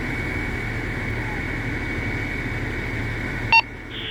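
Steady rumble and hiss of an open two-way radio channel over a running engine, cut off by a short, sharp electronic beep about three and a half seconds in, after which the noise drops.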